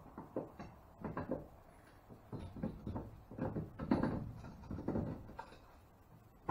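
Irregular knocks, clicks and scrapes as bolts are pushed through a jack plate and a small boat's transom and the plate is shifted by hand, loudest about four seconds in.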